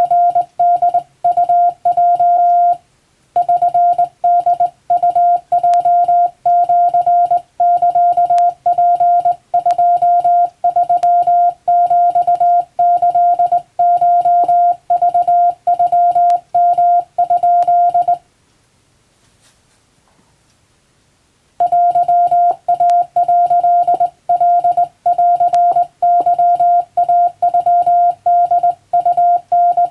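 Japanese (wabun) Morse code keyed as a steady beep near 700 Hz, switching on and off in short dots and longer dashes, with a pause of about three seconds a little past halfway.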